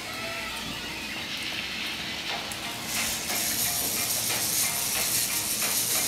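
K'Nex roller coaster's motorized chain lift running: a steady plastic ratcheting clatter that grows louder about three seconds in.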